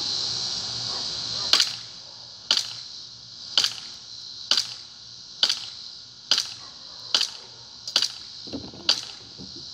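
KWA ATP gas blowback airsoft pistol fired on semi-auto, about nine sharp single shots roughly a second apart, until the green gas magazine is emptied.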